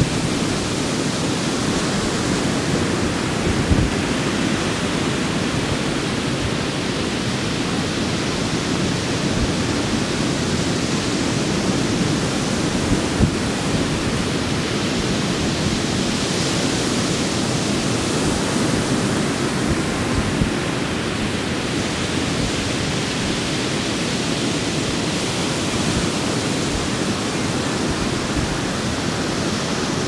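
Pacific Ocean surf breaking and washing up on a sandy beach: a steady rush of waves that swells a little brighter about halfway through, with a few brief low thumps.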